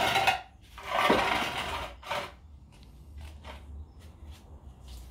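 Engine crane being rolled with the engine hanging from it: two bursts of metallic rattling and scraping about a second each, a shorter one near two seconds in, then a few faint clicks.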